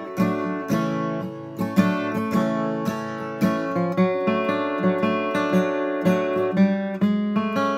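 Steel-string acoustic guitar flatpicked, with a quick run of picked single notes mixed with strummed chords.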